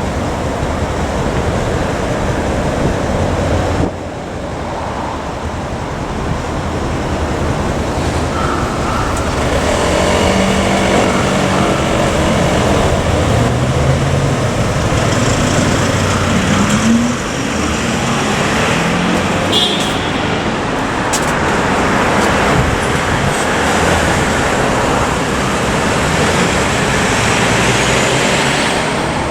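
Road traffic noise: engines running and tyres on the road, with an engine rising in pitch a few times in the middle as a vehicle pulls away.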